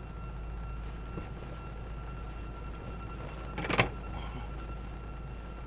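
Steady low rumble of a vehicle idling, with a faint steady high whine. About three and a half seconds in there is one short knock or rustle.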